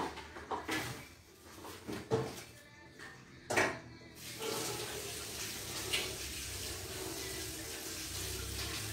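A few sharp knocks and clatters, then from about four seconds in a kitchen tap runs steadily into the sink as hands are washed under it.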